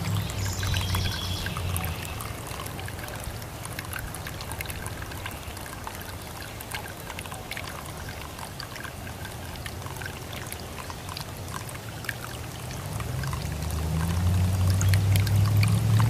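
Solar-powered bird bath fountain: water trickling and splashing into the basin with many small drips. A low steady hum fades out in the first seconds and comes back louder near the end.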